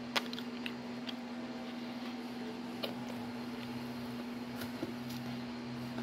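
Chewing fishballs, heard as a few sharp mouth clicks and smacks (the loudest just after the start), over a steady low mechanical hum.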